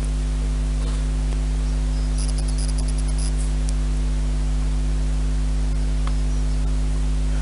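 A steady low hum made of a few held tones, unchanging throughout. Faint light clicks between about two and three and a half seconds in, from small balsa parts being handled.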